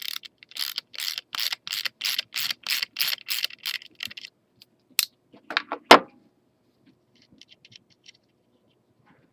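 Ratchet wrench loosening the nut that holds the carriage's back wheel, with quick rhythmic ratcheting strokes about three a second for some four seconds. A few sharp metal knocks follow, the loudest about six seconds in, as the nut comes free.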